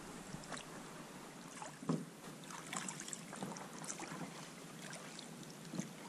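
Faint water noise around an inflatable PVC boat on a river, with a few scattered small knocks and splashes against the boat, the clearest about two seconds in and another near the end.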